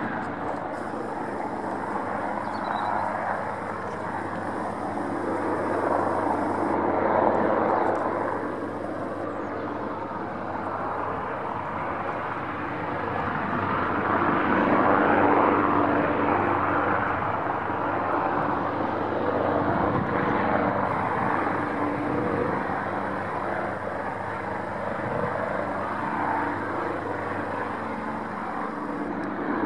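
HM Coastguard search-and-rescue helicopter flying low overhead: steady rotor and turbine noise that swells and eases as it circles, loudest about a quarter and half way in.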